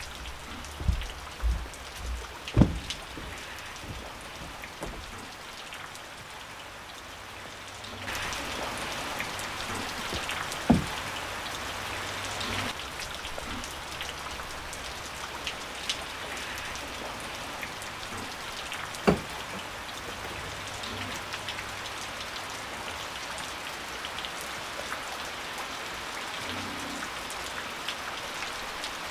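Rain falling steadily, growing louder about eight seconds in. A few sharp knocks come through it: several at the start, then single ones later on.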